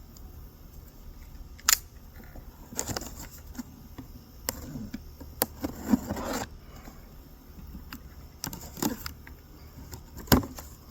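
Cardboard box being handled and opened: scattered sharp knocks and clicks with stretches of cardboard scraping and rustling.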